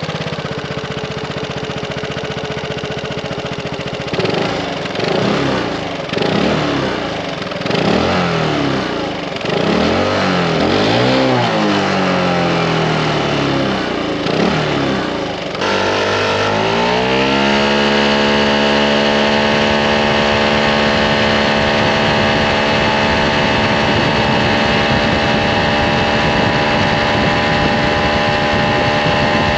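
Aprilia SR GT 125 scooter's single-cylinder four-stroke engine and exhaust idling, then revved in a series of short throttle blips. About halfway through it revs up and is held at a steady high speed.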